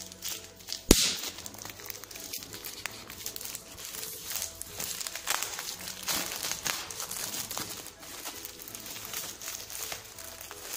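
Clear plastic wrapping crinkling and crackling as a new string-wound sediment water-filter cartridge is handled in it, with one sharp knock about a second in.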